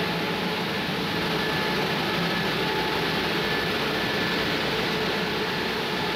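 Combined rice mill machinery running: a steady mechanical din of electric motors, blowers and cleaning machines, with a few faint, steady whining tones over it.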